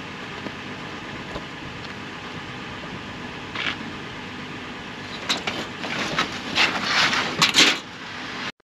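Gear being handled and loaded at the back of a pickup truck, heard as a run of short rustling and clattering noises, mostly in the second half. Under them is a steady rush of background noise.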